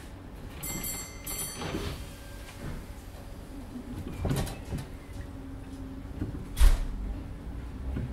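Class 507 electric multiple unit's sliding passenger doors closing at a station stop. Two short electronic warning beeps sound about a second in, then the doors run shut with a knock a little after four seconds and a heavy thud at about six and a half seconds, the loudest sound.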